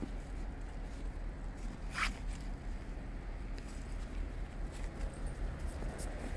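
Soft crunching and rustling as dogs and feet move about in snow, over a low steady rumble, with one brief sharp rustle about two seconds in.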